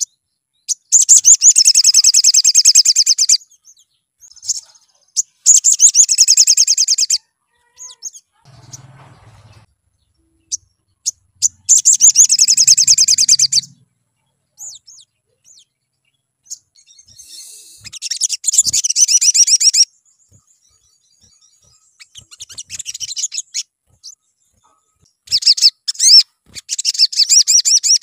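Male olive-backed sunbird in full song: five bursts of rapid, high-pitched trilling, each two to three seconds long, with short chirps in the gaps between them.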